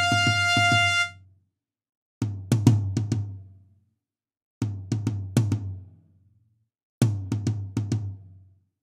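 GarageBand software instruments: a brass section's held final note stops about a second in, then a programmed drum kit plays three short figures of quick hits alone, a couple of seconds apart, with silence between them.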